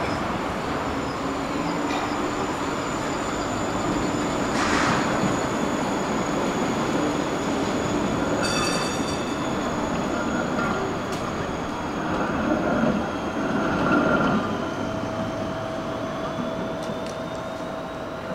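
Articulated electric tram running past on curving track, its wheels squealing on the rails in thin high tones, with a brief high ringing about eight and a half seconds in.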